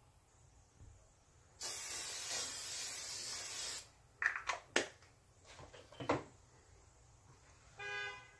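A small spray bottle giving one steady hiss of about two seconds, followed by a few quick rubbing and tapping sounds of hands being rubbed together. Near the end a single short pitched note sounds briefly.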